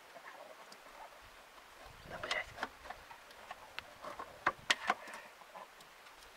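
Irregular sharp clicks and knocks with short scraping sounds as the clogged engine air filter of an E303 mower is worked loose by hand. The loudest are two clicks close together about two-thirds of the way through.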